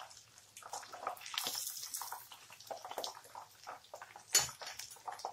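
Chicken pieces deep-frying in a pan of hot oil, sizzling with many small irregular crackles, and one sharper click about four seconds in.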